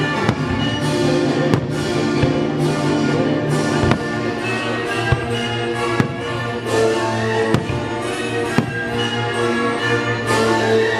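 Orchestral music with brass and strings playing, broken by sharp fireworks bangs every second or so at irregular intervals; the bangs are the loudest sounds.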